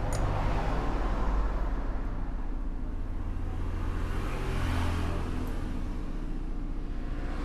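Steady low background rumble and hum, swelling slightly about four to five seconds in.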